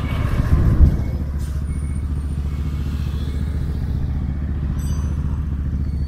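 GPR 250 motorcycle engine running steadily, briefly a little louder about a second in.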